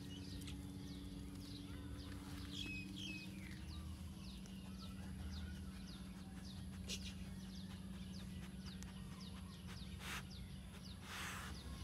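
Quiet outdoor rural ambience: scattered faint bird chirps over a steady low hum, with two short rustling noises near the end.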